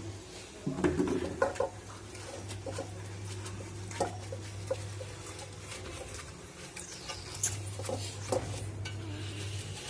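Dismantled air-compressor parts being handled and cleaned: scattered small clinks and knocks, densest about a second in, over a steady low hum.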